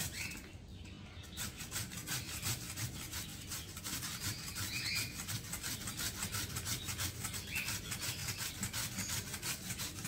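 A carrot being grated on a metal hand grater: a steady run of scraping, rasping strokes that starts about a second in.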